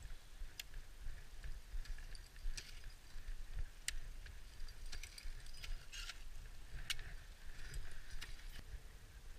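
Ice axe picks and crampon front-points biting into hard snow and ice: irregular sharp strikes and crunches, about one a second, over a low steady rumble.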